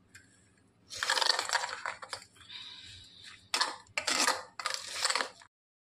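Metal spoon scraping and clinking against a stainless steel bowl, stirring semolina and curd into idli batter in several bouts. The sound stops dead about five and a half seconds in.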